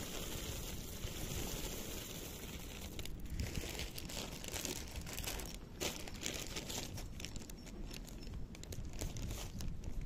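Two cats eating from a shared plate of canned wet food and dry kibble: wet chewing and a run of short crunching clicks, getting busier about halfway through, over a low steady rumble.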